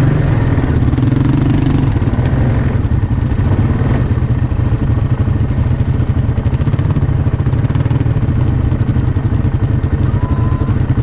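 Four-wheeler ATV engine running steadily at low revs, a constant low engine note while the quad crawls slowly over rough trail.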